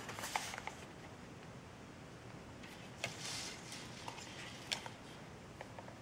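Faint handling noise of a small cardboard box being turned in the hands: a few light clicks and a short rustle about three seconds in.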